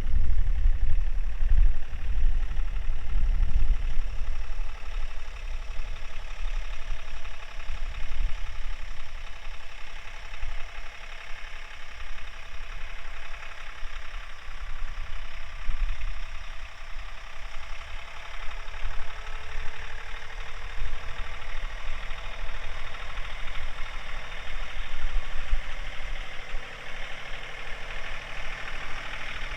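John Deere compact tractor's diesel engine running, pulling harder and more unevenly in the first several seconds as the bale spear is driven into a round bale, then steadier. A faint whine comes in about two-thirds of the way through.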